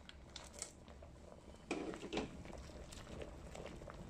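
Stout wort at a rolling boil in an electric urn, bubbling and crackling steadily. About two seconds in there is a brief louder clatter and splash as hop pellets are tipped in from a plastic tub for the late hop addition.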